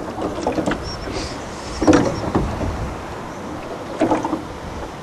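Choppy water slapping against the hull of a small aluminium boat: a few irregular knocks over a steady noisy rush.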